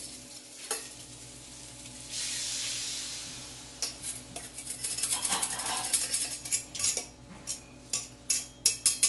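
Sauce mixture poured into a hot wok, a hissing sizzle for a second or two, followed by repeated metal clinks and scrapes as the stainless steel bowl is tipped and knocked against the wok to empty it.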